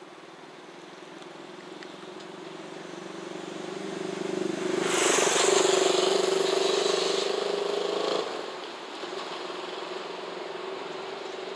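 EF210 electric locomotive's inverter and traction motors whining with a steady, slowly rising tone as it hauls a container freight train. About five seconds in a much louder rushing noise joins, then cuts off suddenly about three seconds later, leaving the whine.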